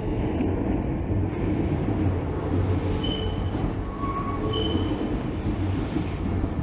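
Keisei Kanamachi Line commuter train running past on its track: a steady, dense rumble with a few short high tones over it.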